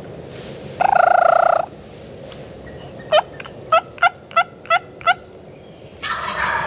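Wild turkey gobbler gobbling once, a loud rattling gobble about a second in. It is followed by six short, sharp turkey yelps in quick succession, each falling in pitch.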